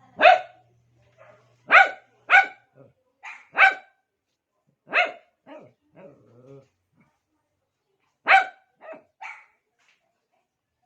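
Shih Tzu barking in short, sharp barks, about ten in loose groups with pauses between: attention-seeking barking aimed at another dog.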